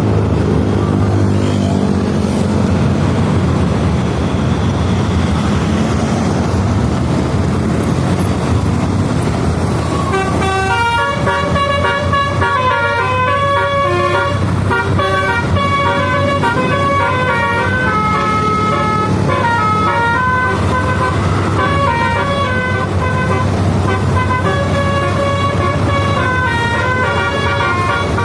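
Bus engine running with a low rumble. From about ten seconds in, a telolet basuri multi-tone air horn plays a tune in stepping notes over it.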